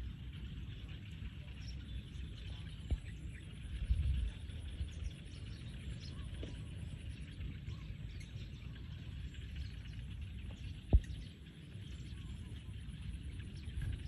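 Outdoor ambience: a steady low rumble with faint bird chirps. Two sharp knocks come through it, one about three seconds in and a louder one about eleven seconds in.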